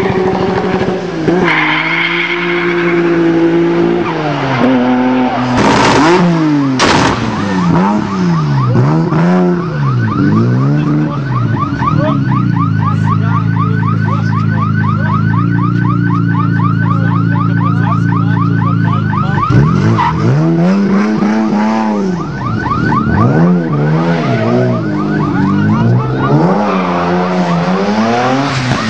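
Turbocharged Toyota Supra Mk4 engine revved again and again, its pitch sweeping up and falling back in quick blips. In the middle it holds a steady high rev for several seconds, and there are a few sharp cracks early on.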